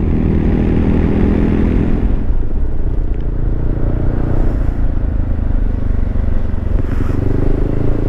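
Motorcycle engine running while riding along, over a steady rush of wind and road noise.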